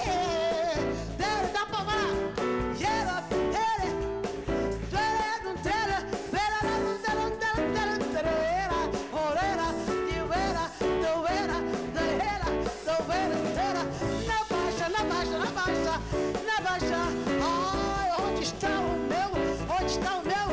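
A woman singing a Brazilian popular song live over a band of keyboards, drums and bass, her voice sliding and bending through long held notes.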